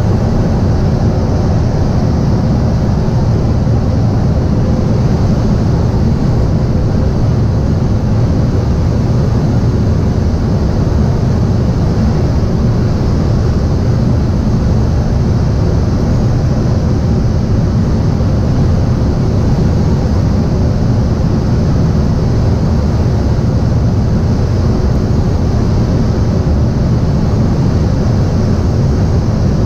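Steady rush of air over the Schweizer SGS 2-33 glider's cockpit while it is on aerotow, with the tow plane's engine faintly droning ahead through the noise.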